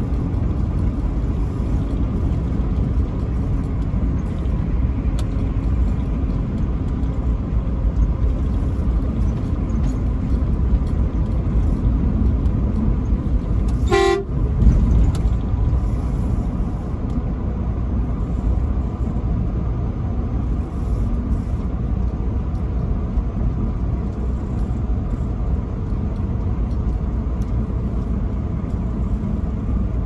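Steady road and engine rumble of a truck driving on the highway, with one short truck horn toot about halfway through.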